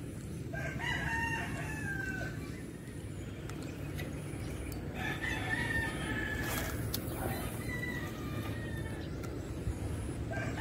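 Rooster crowing: one long crow about half a second in, a second about five seconds in, and a third starting at the very end.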